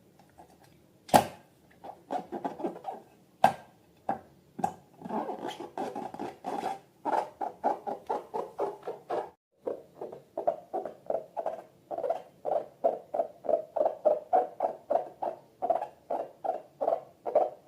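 Slime being worked by hand: quick, repeated squelches and small clicks, about three or four a second, with a brief pause about halfway through.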